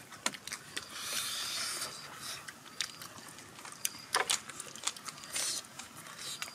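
Biting and chewing of crisp raw vegetables: a string of sharp crunchy clicks, with a longer crunch about a second in.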